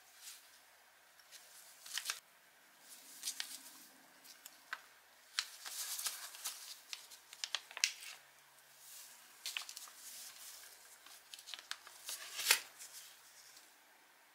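Nitrile-gloved hands handling a small resin-coated handle scale and pressing thin metal strips into its grooves on kraft paper: scattered light clicks, taps and paper rustles, with one sharper click about twelve seconds in.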